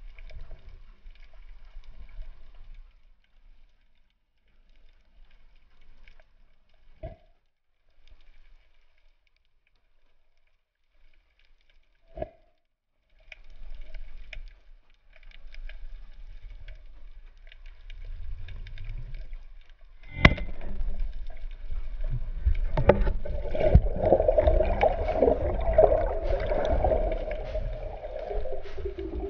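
Underwater sound heard through a GoPro camera housing: faint crackling and a couple of sharp clicks, then about two-thirds of the way in a sharp crack from the speargun shot. After the shot comes loud, rough scraping and repeated knocking as the diver grapples with the speared fish and the shaft in a rocky hole.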